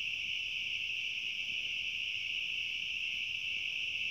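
Steady high-pitched insect chorus, an unbroken trill of crickets or similar night insects.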